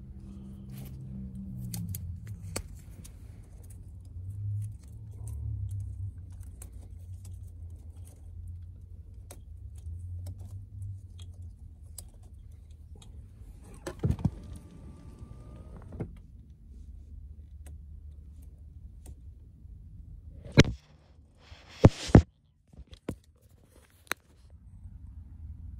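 Scattered clicks, rattles and rustles of hands working wiring and plastic trim under a car's dashboard, over a steady low hum. A cluster of sharper clicks comes about halfway through, and a few loud knocks near the end.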